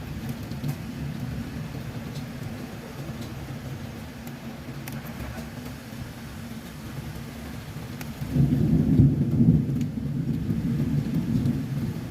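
Heavy rainstorm with strong wind: a steady low rumble under fine rain ticks. About eight seconds in, the low rumble swells louder for a couple of seconds, then eases back.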